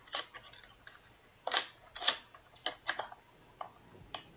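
Hands handling a box and its contents close to the microphone: about seven sharp taps and clacks, with short scraping swishes between them, the loudest around one and a half to two seconds in.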